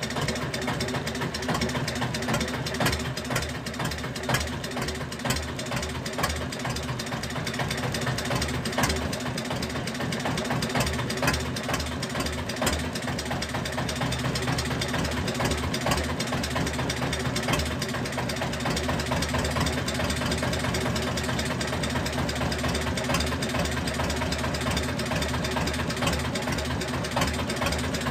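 A fishing boat's engine running steadily at low revs.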